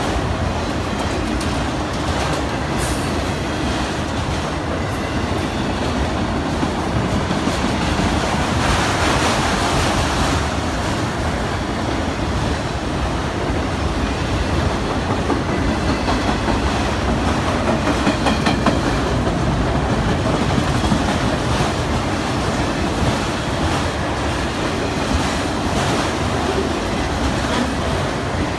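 Empty autorack freight cars rolling past close by: a steady noise of steel wheels on the rails, briefly louder and brighter about nine seconds in.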